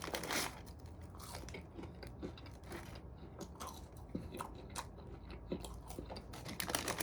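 A person biting into and chewing crispy French fries, with a loud crunch at the start and then steady crunchy chewing.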